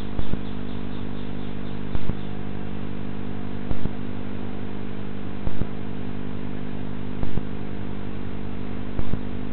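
Steady electrical hum with many fixed tones over a background hiss, typical of a CCTV recorder's audio track. It is broken at even intervals, about every second and three-quarters, by a pair of sharp clicks, six times.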